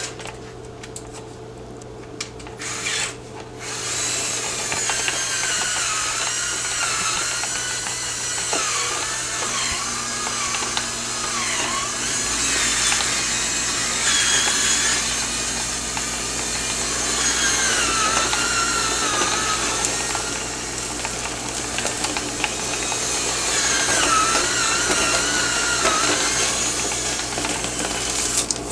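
A power drill runs steadily, starting about three and a half seconds in, its whine wavering up and down as it takes load, as when a rotary brush is spun through a dryer vent duct to clear lint. A low steady hum joins about twelve seconds in.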